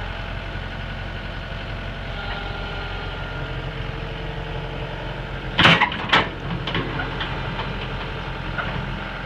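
Komatsu PC120-5 excavator's diesel engine idling steadily. About two-thirds of the way through come two sharp knocks about half a second apart, followed by a few lighter clicks.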